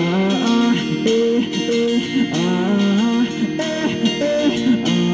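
Electric guitar strummed in a steady rhythm, with no sung words.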